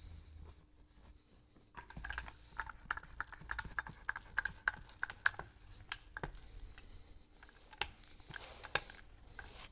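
A small hand roller pressed and rolled along the freshly hot-glued edge of a rug, giving a run of quick, irregular clicks and ticks for a few seconds, then a few single clicks near the end.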